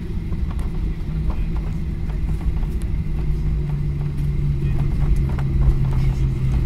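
Cabin noise inside a Boeing 737-800 slowing on the runway after landing: a steady low rumble from its CFM56 engines at idle and the wheels rolling on the tarmac, with a humming tone that drops lower about three seconds in and a few light cabin rattles.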